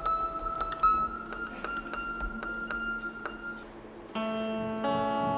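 Bare grand-piano strings plucked one after another with a pick, about three plucks a second, each note ringing on: strings being pitched by ear after stringing, before the action is fitted. About four seconds in, a fuller ringing chord of several notes begins.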